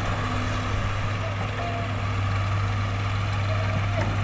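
Diesel engines running with a steady low drone: a Hitachi EX100 wheeled excavator working its boom down into a soil heap, with a tractor standing beside it.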